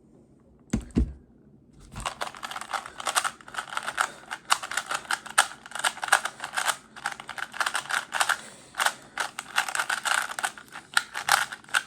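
Rubik's brand 3x3 cube being turned at full speed in a speedsolve: a dense, irregular run of plastic clicking and clacking layer turns that goes on for about ten seconds. It starts after a couple of low thumps about a second in.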